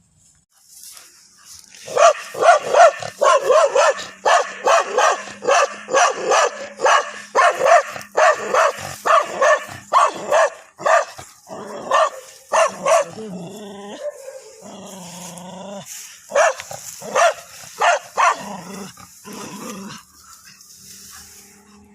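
A dog barking rapidly and repeatedly, about two barks a second, starting about two seconds in, with a short break for a drawn-out lower sound about two-thirds of the way through.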